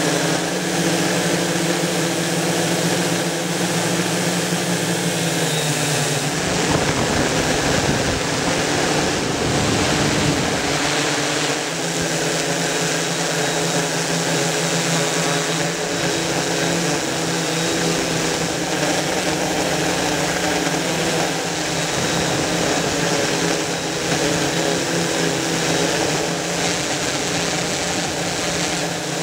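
Mikrokopter octocopter's electric motors and propellers droning steadily in flight, a hum of several pitches that shift slightly as it manoeuvres, heard from the camera the craft carries. From about six to eleven seconds in, a rough low rumble joins the hum.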